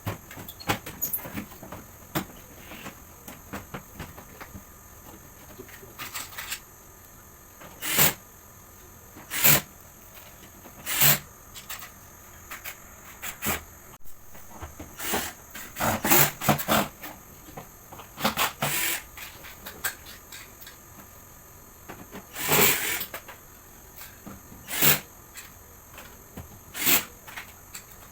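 Irregular knocks, clatters and scrapes, each about half a second, as the portable air conditioner's plastic casing and blower parts are handled during repair, over a faint steady high hiss.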